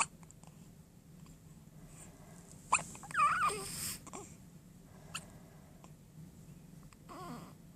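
Six-day-old newborn babies hiccupping: small sharp hiccups about every two and a half seconds. A squeaky, wavering whimper follows the second hiccup, and another short whimper comes near the end.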